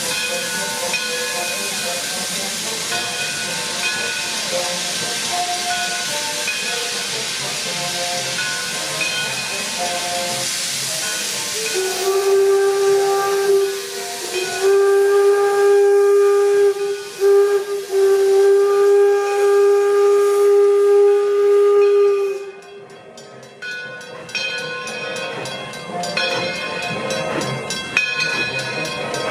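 Steam hissing steadily from an 1897 Baldwin 4-4-0 steam locomotive, D&LN No. 7. About twelve seconds in, its steam whistle sounds two long blasts, a short one and a last long one, the grade-crossing signal.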